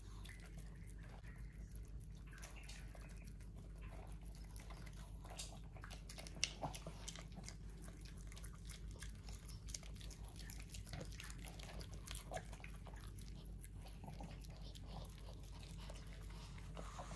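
Maltipoo nibbling and chewing egg from fingertips: faint, irregular wet mouth clicks and smacks, with one sharper click about six seconds in.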